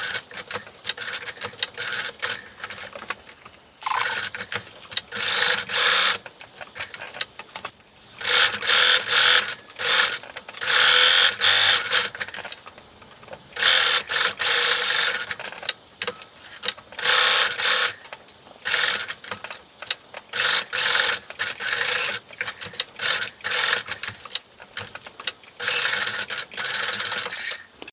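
Sewing machine fitted with a zipper foot stitching a jacket zipper in place, running in spurts of a second or a few seconds with short stops between.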